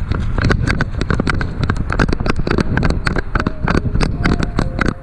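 Dense, irregular sharp clicks and cracks, several a second. Steady music tones come in about three seconds in.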